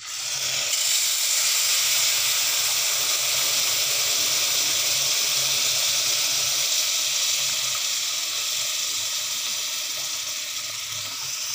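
Hot sugar water poured into semolina roasted in ghee in a hot pan, setting off a loud, steady sizzle. It starts at once and eases a little toward the end.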